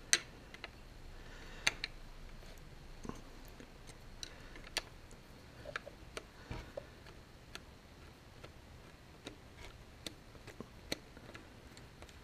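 Scattered, irregular faint clicks and ticks of a screwdriver working the small screws of a steering column's turn-signal switch plate, metal tip against screw heads and the switch parts. A few clicks are sharper, near the start and about five seconds in.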